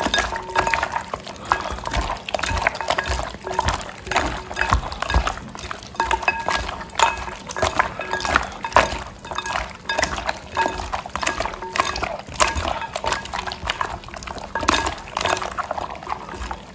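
Wet squelching and squishing as raw chicken wings are kneaded by hand in beaten egg and seasoning in a glass bowl, with many irregular clicks and small clinks as the pieces knock against the glass.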